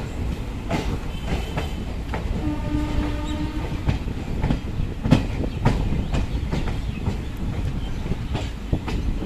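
Indian Railways passenger coach rolling along a station platform: wheels clacking over rail joints at an uneven pace over a steady low rumble. A short steady tone sounds briefly about two and a half seconds in.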